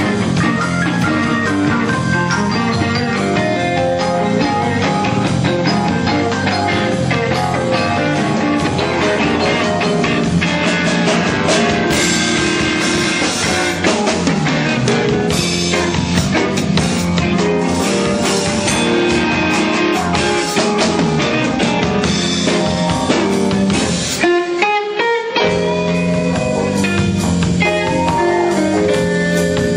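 Live rock band playing an instrumental passage: electric guitar over a Sonor drum kit. Near the end the band drops to a thin sound for about a second, then comes back in.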